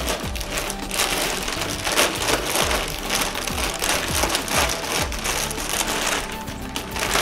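Clear plastic bag crinkling and rustling as it is cut open and pulled back off a printer, loudest in the middle, over steady background music.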